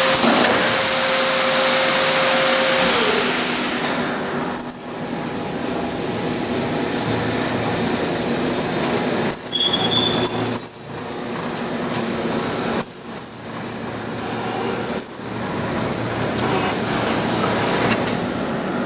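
DingTec ZL3000-S high-frequency welding machine running with a steady whooshing hum. About three seconds in, a tone in the hum slides down in pitch as a motor slows after a control is switched, and brief high squeaks come at intervals.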